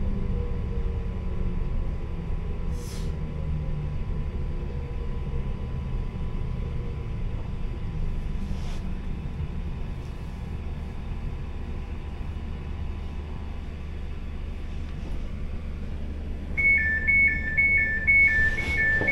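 Class 345 Elizabeth line train running, a steady low rumble heard from on board, with a low whine falling slightly in pitch over the first several seconds. Near the end a repeating two-note electronic beep starts.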